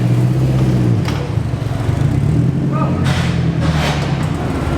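Car engine running at idle with a deep, steady exhaust drone, its pitch shifting a couple of times.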